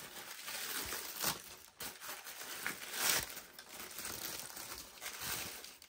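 Tissue paper crinkling and rustling as hands pull it back and crumple it away from a sneaker in a shoebox, in irregular crackles that are loudest about halfway through.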